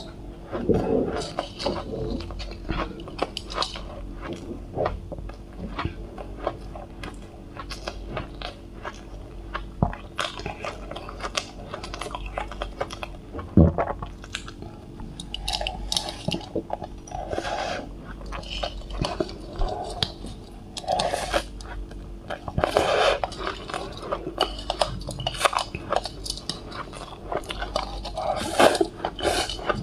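Close-up chewing and crunching of soft shaved cotton ice, with a metal spoon scraping and clinking against the bowl between mouthfuls. One sharp knock stands out about halfway through.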